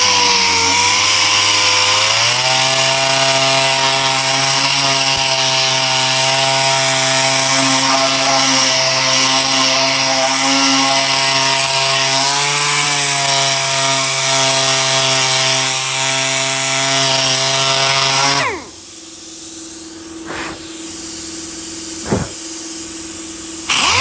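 DA (dual-action) sander with a coarse-grit pad running against the coated sheet metal of a garden-tractor body, grinding off bed-liner coating. Its motor pitch dips and recovers as it is pressed into the work. It cuts off about three-quarters of the way through, leaving a low steady hum and a few sharp clicks.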